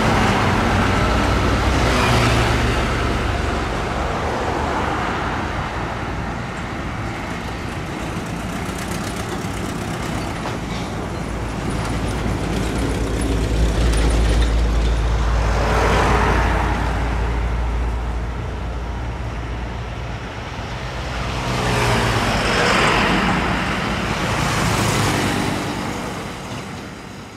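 Road traffic of heavy diesel trucks and motorcycles passing close by: a steady low engine drone with tyre and road noise, several pass-bys swelling and fading away. The sound fades out near the end.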